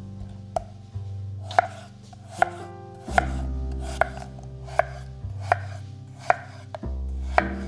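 Chef's knife slicing raw peeled potatoes on a wooden cutting board. Each cut ends in a sharp knock on the board, about nine of them a little under a second apart, over background music.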